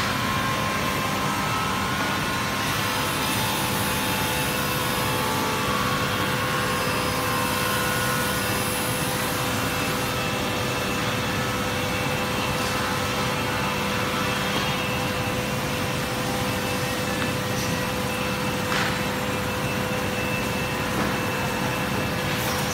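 Joway P-3200EU sliding table panel saw running, its main and scoring blades spinning steadily while laminate-faced board is fed through and cut. A steady, even machine noise with a held tone.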